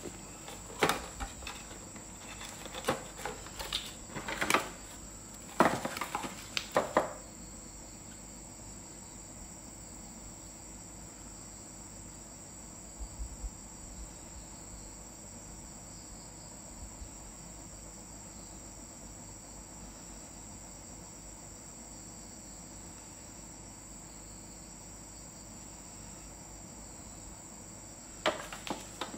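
Clicks, knocks and scrapes of hands and a knife working on a flashlight's box and insert, over about the first seven seconds and again near the end. In between, only a thin steady high-pitched tone in the background.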